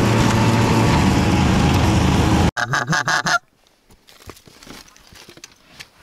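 Snowmobile engine running steadily under way for about two and a half seconds, then cut off abruptly. A quick run of loud goose honks follows for under a second, then only faint rustles and clicks.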